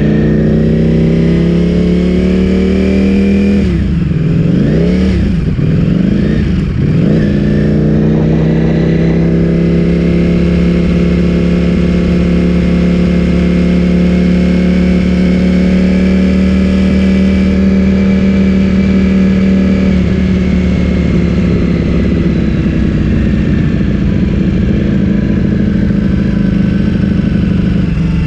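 Ducati Streetfighter V4S's 1103 cc V4 engine through an Akrapovic full-system exhaust, heard on the move. Revs dip and climb sharply a few times about four to seven seconds in, then hold steady and ease slowly down near the end.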